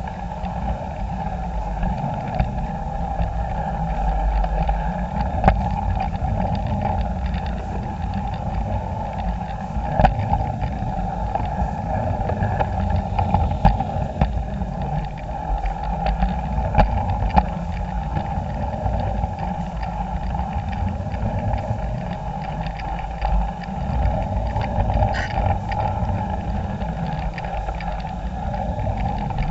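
Model railway train running along the track, heard from a camera riding on it: a steady motor hum over a low rumble of wheels on rail. A few sharp clicks come from the wheels crossing track joints and pointwork.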